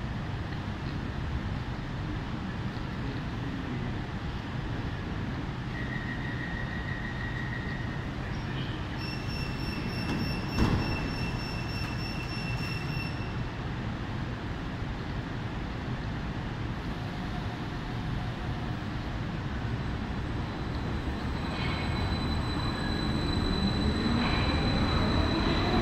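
Stadler metro train at a platform: a warning tone sounds, the doors shut with a thump about ten seconds in, and near the end the train pulls away, its traction motors whining upward in pitch as it gathers speed.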